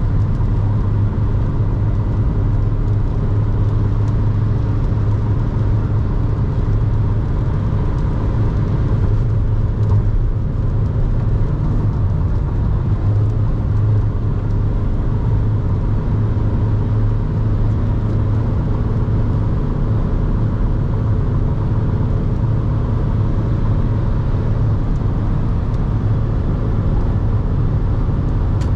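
Inside the cab of a VW T5 Transporter, its 1.9 TDI four-cylinder diesel runs under load at high motorway speed, a steady low drone with road and wind noise.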